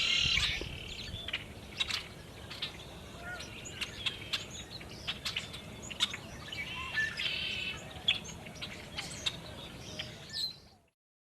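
Small birds chirping and giving short sharp chip calls, with a burst of rapid chattering calls at the start and another about seven seconds in. The sound cuts off abruptly near the end.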